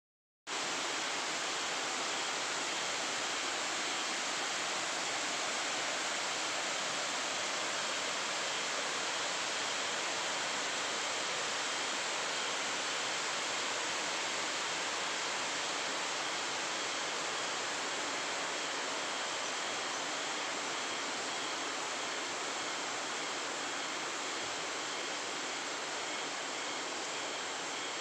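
Steady, even rush of a waterfall's falling water, unbroken and without changes in level.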